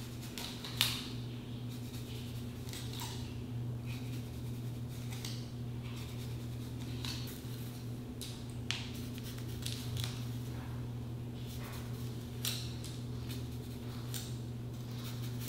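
A steady low hum, with scattered faint short rustles and clicks from hands working through and smoothing a long curly wig.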